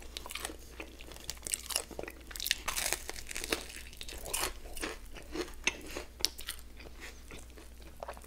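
Biting and chewing crispy chicken wings coated in peanut butter and jam, close to the microphone: irregular crunches and mouth sounds.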